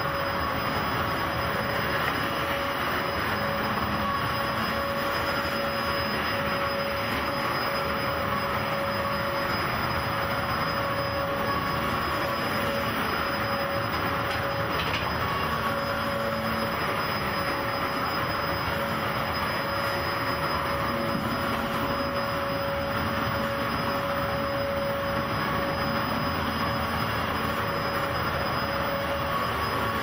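Dyson vacuum cleaner running steadily: an even motor-and-airflow noise with a constant whine.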